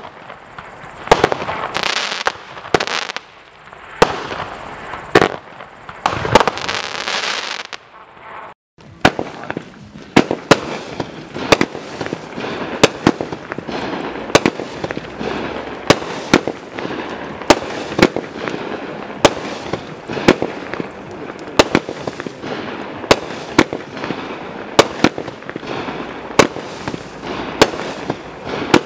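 Consumer aerial fireworks cakes firing. First come loud bursts of crackle. After a short break about 8 seconds in, a second cake, the Mad Ox Reaper Drone, fires a steady string of sharp shots a little more than one a second, with crackling from the bursting stars between them.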